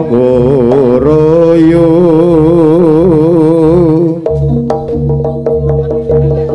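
Javanese jaranan music played live and loud. A wavering melody with heavy vibrato sounds over drumming. About four seconds in, the melody drops out, leaving steady held tones and a run of sharp drum strokes.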